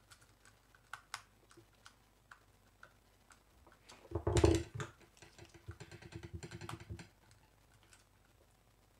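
Light clicks and taps of a screwdriver and wires being worked into the screw terminals of a push-button switch. There is a louder burst of handling noise about four seconds in, followed by a fast rattle for about two seconds.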